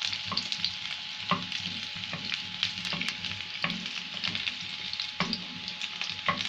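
Hollowed-out potatoes sizzling as they fry in ghee in a non-stick pan, with a steady hiss. A wooden spatula knocks and scrapes against the pan at irregular moments as the potatoes are turned over.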